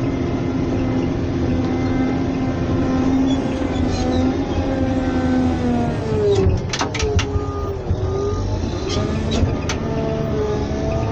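Caterpillar 120K motor grader's diesel engine running, heard from inside the cab. Its pitch sags about six seconds in and climbs back about two seconds later, with a few sharp clanks around the dip and again near the end.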